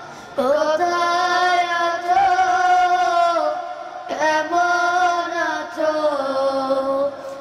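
Young boys singing an Islamic song (nasheed) in two long melodic phrases of held, wavering notes. The first phrase begins about half a second in, the second about four seconds in.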